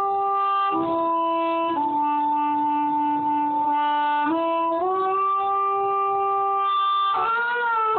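Harmonica playing a slow melody of long held notes, each lasting about a second before sliding to the next pitch.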